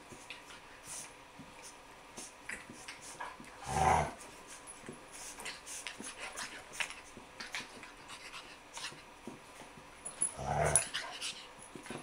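A pug and a small puppy play-fighting, with soft snuffling, panting and scuffling throughout and two short, louder growls, one about four seconds in and one near the end.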